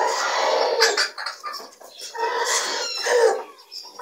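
Chickens calling: two long calls of about a second each, one at the start and one about two seconds in.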